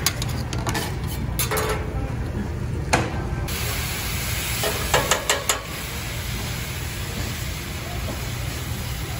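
Liquid sizzling on a hot steel hibachi griddle. A metal scraper clicks and scrapes on the steel, then about three and a half seconds in a steady hiss begins as the liquid hits the hot surface and boils off in steam. A few sharp metal taps come about five seconds in.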